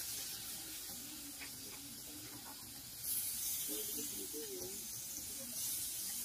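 Meat sizzling on a grill pan: a steady hiss that gets louder about three seconds in. A faint voice comes in briefly near the middle.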